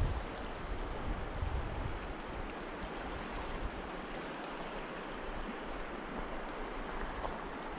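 Shallow mountain stream running steadily over a cobble bed, an even rushing of water.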